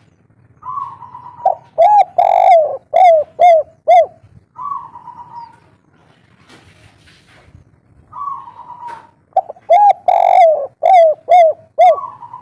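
Spotted dove (tekukur) singing its 'kuk 3' song twice. Each phrase opens with a falling coo and goes into a run of short, loud, arched coos with one longer coo among them. It ends with a softer falling coo.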